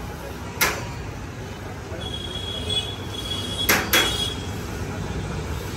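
Long-handled metal ladles stirring a huge shallow pan of chicken curry, knocking sharply against the pan three times: once under a second in, then twice in quick succession near the middle. A steady low rumble of the burner under the pan runs beneath.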